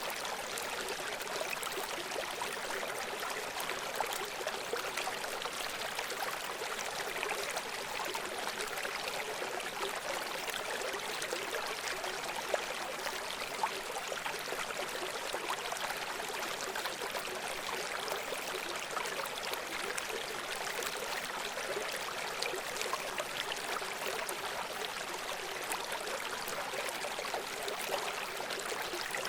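River running over rocks: a steady rush of flowing water with small splashes and gurgles throughout.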